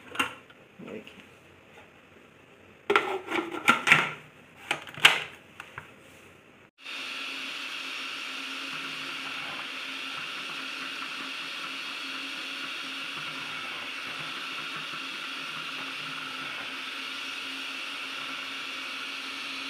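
Short plastic clicks and knocks as the food processor's grating disc and lid are fitted. About seven seconds in, the electric food processor's motor starts suddenly and runs at a steady pitch, grating peeled bottle gourd (kaddu) fed down the feed tube.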